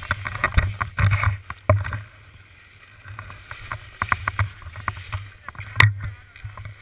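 Handling noise on a pole-mounted action camera: rubbing and repeated knocks over a low rumble from skis sliding on packed snow during a tow up a surface ski lift, with a sharp knock near the end.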